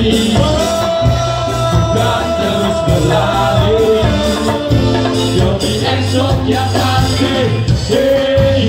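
Ska band playing live and loud through a PA, a steady beat under long held melody notes.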